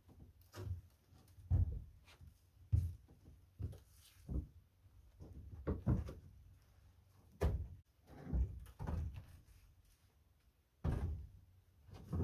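Heavy steel three-point hitch parts being handled and loaded into a pickup truck bed: irregular knocks and heavy thunks, about a dozen, with a couple of longer scraping stretches.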